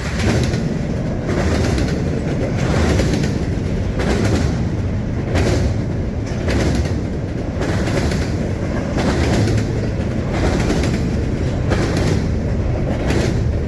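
Freight train cars rolling past close by, a steady low rumble with wheels clacking over rail joints about once every second or so.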